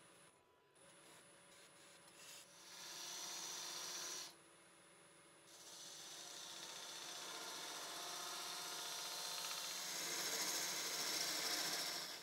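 A turning tool cutting the base of a small wooden goblet spinning on a wood lathe: a scraping hiss of steel on wood in two spells, a short one and then, after a brief pause, a longer one that grows louder toward the end.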